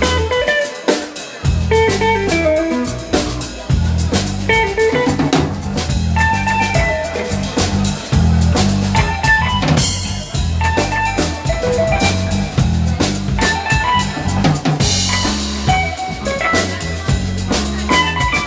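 A guitar, bass and drums trio playing live and instrumental: an electric guitar lead line over electric bass and a drum kit. The bass drops out briefly about a second in, and cymbal crashes ring out about ten and fifteen seconds in.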